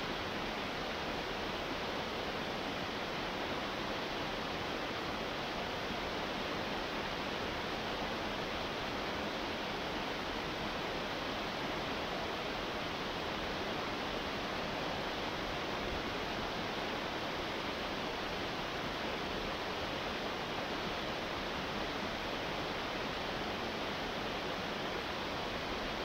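Waterfall cascading over rocks: a steady, unchanging rush of falling water.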